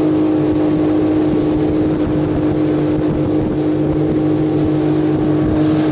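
Outboard motor running steadily, driving an inflatable PVC boat along under way, with an even unbroken drone.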